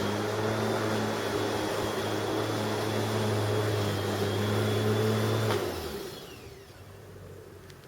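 Bosch Rotak 34 corded electric rotary lawnmower running: a steady motor hum with a high whine. It is switched off about five and a half seconds in and winds down, the whine falling away.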